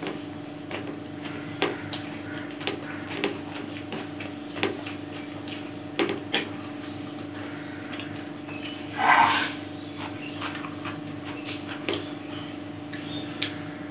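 Eating sounds of a person eating biryani by hand: scattered small clicks and smacks of chewing and fingers working rice on a plate, over a steady low hum. About nine seconds in, a short, louder sound stands out.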